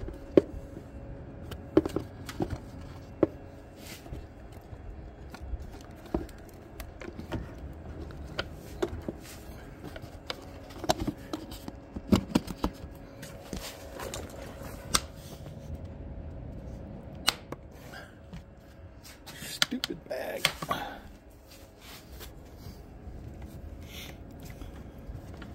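Scattered plastic clicks, taps and knocks from hands seating a car's plastic air filter housing lid and snapping its clips into place, with a short burst of rustling and handling about 20 seconds in.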